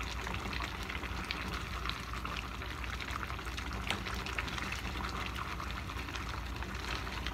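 A thick chicken and potato stew simmering in a pan on a gas burner while a wooden spatula stirs it: wet bubbling and sloshing with frequent small irregular clicks of the spatula, over a steady low hum.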